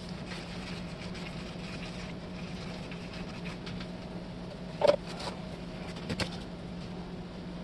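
Steady low electrical hum from the workshop, with one sharp clink about five seconds in and two light clicks a second later as a tool is picked up off the bench.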